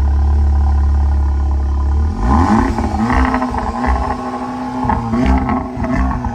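Audi S3's engine, first a steady low drone, then about two seconds in it opens up and the car accelerates hard, the engine note rising and breaking off and picking up again a few times.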